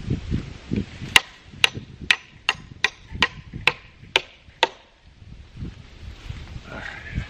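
Nine sharp hammer blows on metal, about two a second, each with a brief ring, while fastening welded wire fencing to a post.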